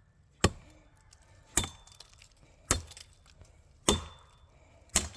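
Five sharp chopping blows of a blade into wood, about one a second, each with a brief metallic ring, as the cut is made that takes the leverage off the bent tree so it will fall.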